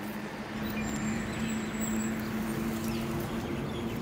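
Steady rush of wind and road noise from riding a bicycle on a paved road, with a steady low drone underneath.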